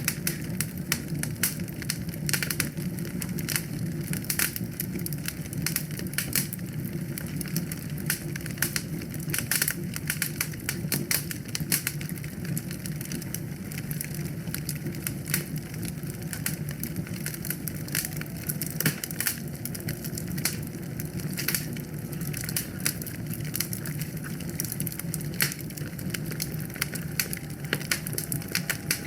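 Wood fire burning in a fireplace: dense crackling and popping over a steady low rumble of the flames.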